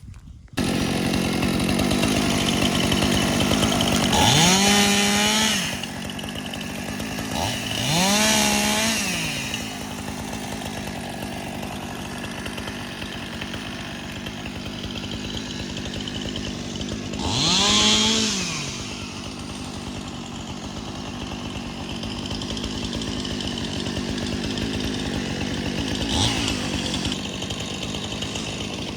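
Gasoline chainsaw running while cutting up fallen trees, starting abruptly about half a second in. It is revved up three times, each time rising in pitch and falling back, between stretches of steady running.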